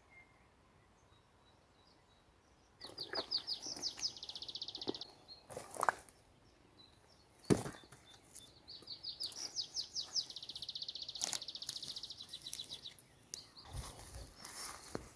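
A songbird sings a high trill twice: a few spaced notes speed up into a fast, even trill lasting a couple of seconds. A few sharp knocks and a low thump come in between, the loudest knock about halfway through.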